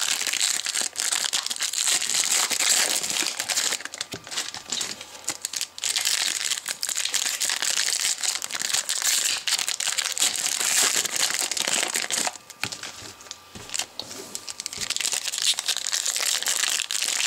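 Crinkling of a foil trading-card pack wrapper, a 2014 Panini Select football pack, handled and opened by hand, with the cards inside being handled. The rustling runs on almost continuously and drops away briefly about two-thirds of the way through.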